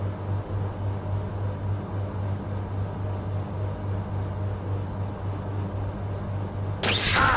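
A steady low hum, then near the end a sudden, loud burst of noise lasting about half a second.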